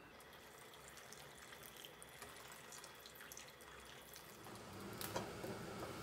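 Liquid trickling from a glass carafe into an enamel pot of simmering beef hooves, with small splashes, getting louder near the end. A sharp tap about five seconds in.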